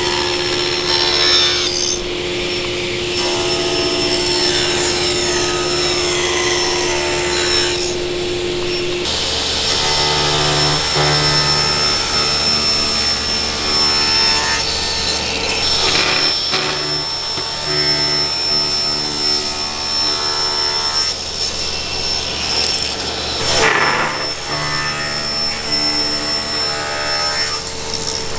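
Table saw running and ripping wooden cutting-board blanks, several cuts one after another over a steady motor hum.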